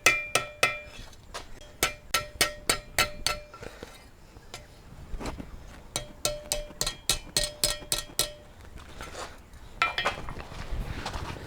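Quick light hammer blows on steel over an anvil, each ringing briefly, in two runs of about a dozen strikes with a short pause between and a couple more near the end: the end of a small forged pendant being rolled over on itself into a loop.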